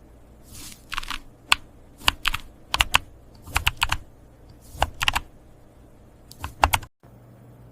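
Typing on a mechanical keyboard in short bursts of a few sharp keystrokes, roughly one burst a second, with the sound cutting out briefly near the end.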